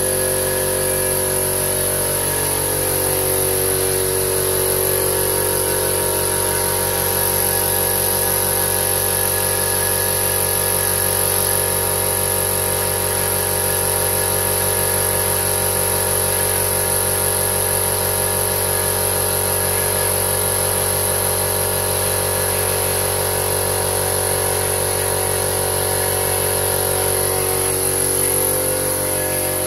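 Elephant 2 HP oil-lubricated piston air compressor with a 50-litre tank running steadily on its first start, electric motor and pump going evenly without a break.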